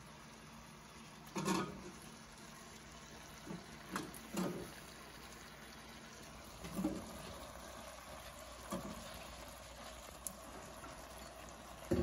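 Wet potato and carrot cubes dropped from a bowl into a stainless steel pot, a few at a time: a series of about seven soft plops and knocks over a faint steady hiss.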